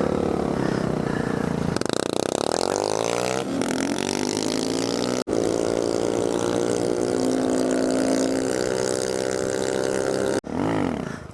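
Small motorcycle engine running under way, its pitch sweeping up and down as it revs, then holding a steady pitch while cruising. The sound drops out abruptly twice.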